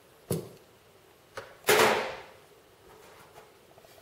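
Hard knocks from a wooden canvas stretcher frame and hand tools being handled: one sharp knock, a faint one about a second later, then the loudest, a clattering knock with a short ringing tail.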